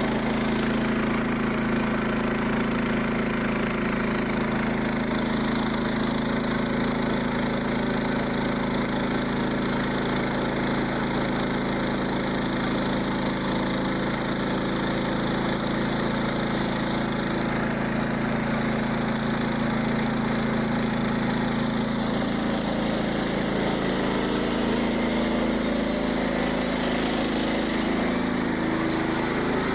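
Frontier OS27 portable band sawmill running steadily, its small gas engine driving the band blade through white oak. One blade guide bearing has gone bad and is no longer rolling, which the operator blames for the weird noises and for the blade's breakage. The higher tones shift in pitch a couple of times.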